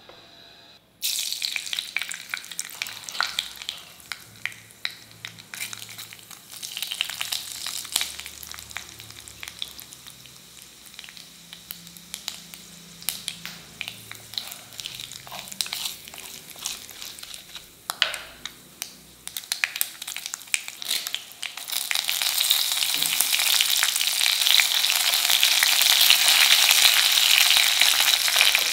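Tempering in hot oil in a stone pot: about a second in, a sharp crackling starts as seeds fry and pop, with stirring from a wooden spatula. Near the end it becomes a loud, dense, steady sizzle as dried red chillies and curry leaves fry in the oil.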